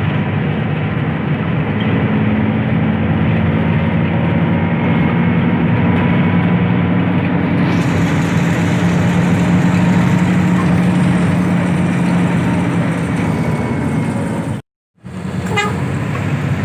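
Intercity bus on the move: a steady engine drone with road and wind noise. It cuts to silence for a moment near the end, then the same noise comes back.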